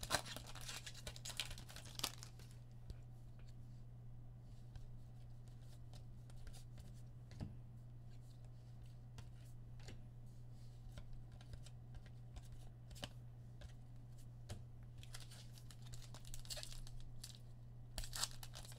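Foil trading-card pack wrappers tearing and crinkling as packs are ripped open and cards handled, over a steady low hum. The rustling comes in the first two seconds and again near the end, with a few light clicks between.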